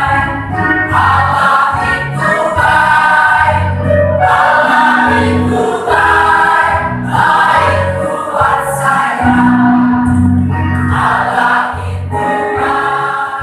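Combined church choir singing a Christmas song, with sustained low notes underneath the voices.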